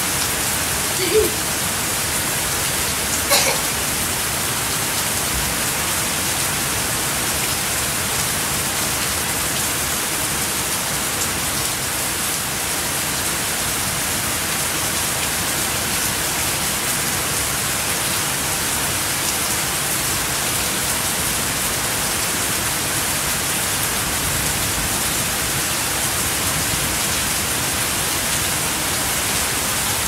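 Heavy rain pouring steadily on garden foliage and a tiled patio, an even hiss. Two brief louder taps stand out in the first few seconds.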